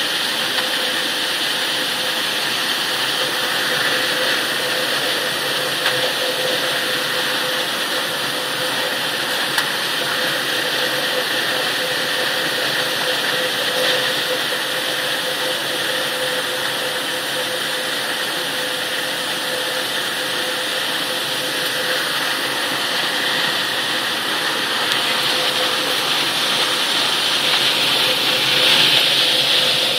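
Conveyor and tray machinery on a cooked-sorghum processing line running: a steady machine drone with a constant hum, a little louder near the end.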